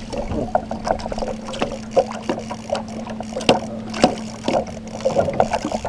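Water knocking and splashing irregularly against the hull of a small aluminum fishing boat while it trolls, over a steady low hum from its running motor.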